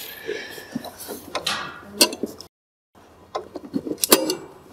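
Ratchet wrench clicking and metal clinking as the cover bolts are backed out of a snowmobile's primary drive clutch, in short irregular bursts with a brief break about halfway.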